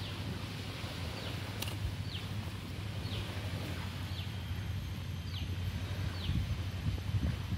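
A bird calling repeatedly in short notes that fall in pitch, about one a second, over a steady low wind rumble, with one sharp click about a second and a half in.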